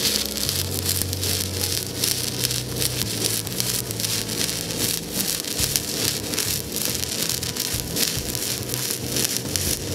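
Stick-welding arc crackling and sizzling steadily as a 3/32-inch 7018 rod burns in, from an HTP Invertig 221 inverter welder in pulsed stick mode at 120 amps and 3 Hz.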